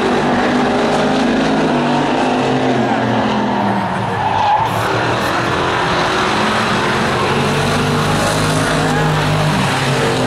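A pack of hobby stock race cars running around a short oval, several engines at once with their pitch shifting as the cars pass through the turns.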